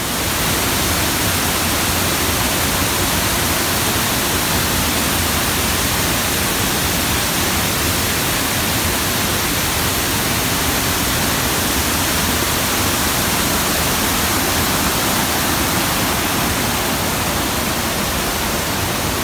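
Large waterfall pouring over rock face: the steady, loud rush of falling and churning water.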